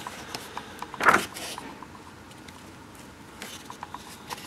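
Pages of a paperback picture book being turned by hand: a short paper swish about a second in and a fainter one a little after three seconds, with light paper rustles and ticks between.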